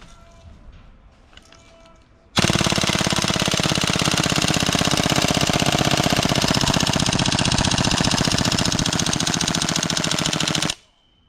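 WE 888 PCC gas blowback airsoft gun firing one long full-auto burst, starting about two seconds in and cutting off abruptly near the end. Faint clicks come before the burst.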